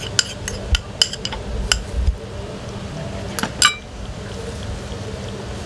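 A metal ladle clinking against ceramic udon bowls about a dozen times, sharp and irregular, the loudest near the end of the clinking, as the bowls are dished up. After the clinks stop, only a steady low kitchen background noise is left.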